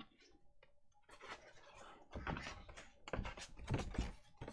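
Paper and card being handled and rubbed on a tabletop: a short click, then scratchy rustling with several louder strokes from about a second in.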